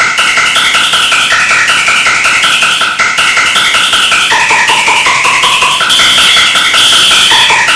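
Fire alarm sound effect sampled and pitch-shifted into a musical tune: a rapid beeping pulse, about five a second, under a higher beeping melody that steps up and down. About four seconds in the pulse drops lower for a second and a half, then returns.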